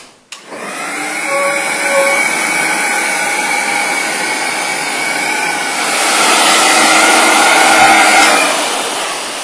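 An air sled's powerful blower switching on with a click and running as a steady rushing whine, pushing air through the perforated neoprene lifting beams to lift a heavy unit. It gets louder for about two seconds near the end, then eases a little.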